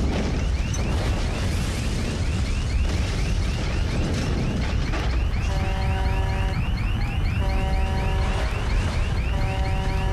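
Deep steady rumble of a blast and fire with an alarm sounding over it: a rapid rising whoop repeats about four times a second, joined about halfway through by a horn-like alarm tone that sounds for about a second, then stops for about a second.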